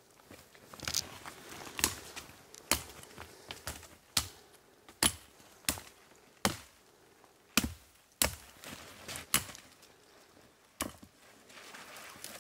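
About eleven sharp, brief cracks of wood in an uneven rhythm, most of a second apart.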